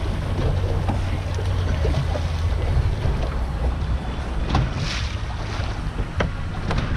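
Steady low wind rumble buffeting the microphone on an open boat at sea, over a haze of wind and water noise, with a few short sharp sounds in the second half.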